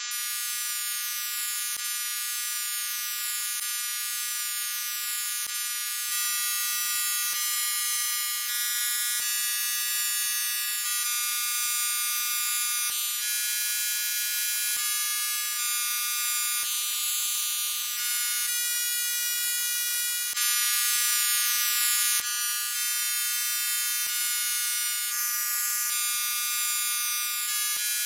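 Synthetic tinnitus-relief sound: many layered high-pitched electronic tones with nothing deep underneath. The blend shifts about every two seconds, with a faint click at each change.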